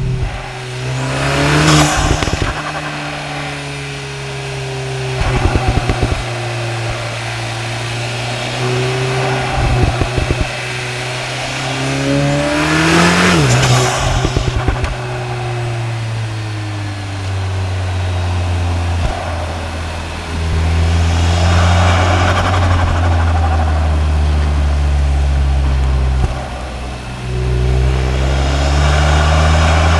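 Tuned 2.0-litre turbocharged four-cylinder EA888 engine of a Cupra Ateca heard through its intake and exhaust: revs rise twice, with loud intake whoosh, and rapid fluttering chatter comes from the turbo when the throttle closes. Over the last ten seconds it runs steadier and lower, with mild pulls.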